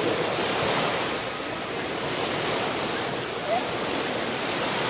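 Ocean surf: waves washing ashore as a steady rushing that swells near the start. A short faint rising call stands out about three and a half seconds in.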